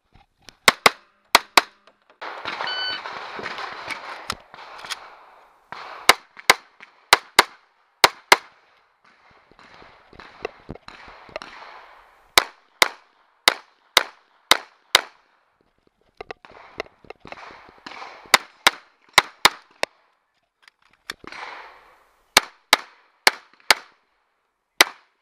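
Glock 21 .45 ACP pistol fired in quick pairs, strings of shots following one another, heard from the shooter's position. Between strings come stretches of rushing noise.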